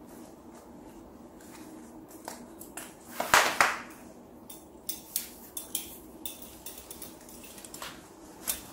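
Louis Vuitton Pont Neuf leather belt being pulled off and handled: one loud swishing rustle about three seconds in as the belt is drawn out, then a series of short clicks and clinks from its metal buckle.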